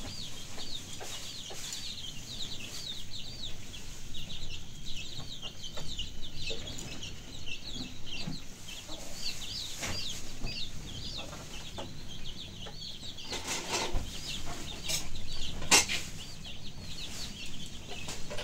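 Birds chirping rapidly and continuously in short, high, repeated peeps, with a few scattered knocks and one sharp clatter near the end.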